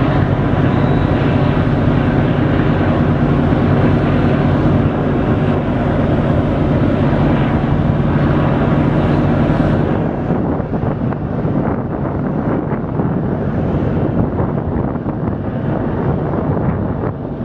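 Large vessels' engines running with a steady, loud low drone, easing off about ten seconds in, with wind buffeting the microphone after that.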